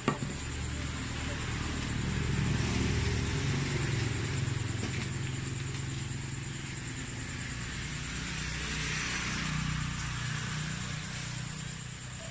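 A motor vehicle's engine running close by, a low steady hum that swells twice and fades, with a single sharp click at the very start.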